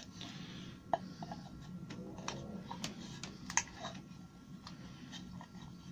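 Scattered light clicks and taps of a metal concealed cabinet hinge being handled and its cup set into a freshly drilled hole in a melamine-faced chipboard door.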